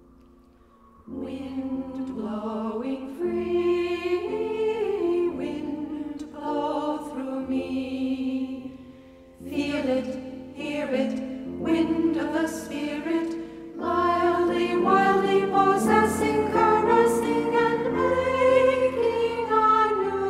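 Choir singing with a steady low accompaniment, coming in about a second in, dipping briefly around the middle and then building again.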